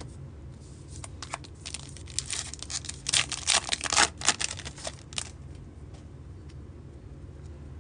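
A 2023 Topps Heritage baseball card pack wrapper being torn open and crinkled by hand: a run of crackling tears and rustles starting about a second in, loudest in the middle, and ending about five seconds in.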